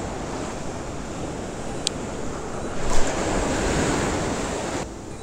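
Ocean surf washing up the beach in the shallows, with wind buffeting the microphone. A wave surges in louder about three seconds in, then eases off.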